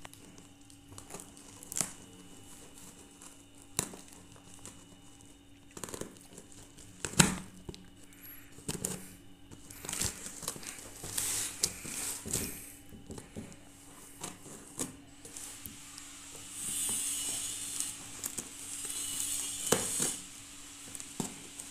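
A cardboard shipping box being opened with scissors: scattered snips, scrapes and clicks as the blades work along the packing tape, with cardboard and tape crinkling and tearing. A sharp knock about seven seconds in, and a longer tearing hiss for several seconds toward the end.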